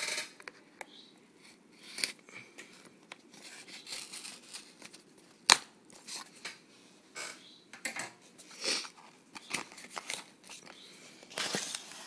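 Cardboard box of an Apple power adapter being opened: irregular scraping, rustling and tearing of the lid and its seal, with one sharp click about five and a half seconds in.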